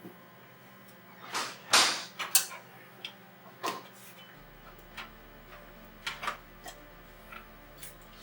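Scattered light knocks and clicks of a motherboard being handled and set down into a metal PC case. There are a few sharp taps, the loudest about two seconds in, and smaller ones spread over the rest.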